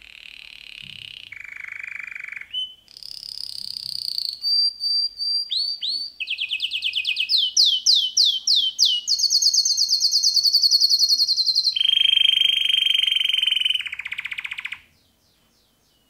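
Male canary singing a long unbroken song of fast trills and rapidly repeated notes, switching from one trill to the next every second or two, loudest in the middle stretch. The song stops abruptly about fifteen seconds in.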